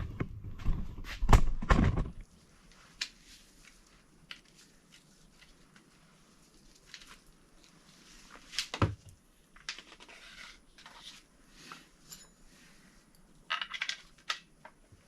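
Hand tools and metal engine parts being handled on a workbench: loud, deep knocks and clattering in the first two seconds, then scattered small clicks, a sharp knock about nine seconds in and a few quick clicks near the end.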